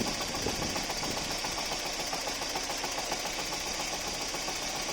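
Freshly rebuilt Opel C20NE 2.0-litre four-cylinder engine idling with a quick, even ticking: the knocks its owner is asking about. The engine is warming up and running more or less steadily.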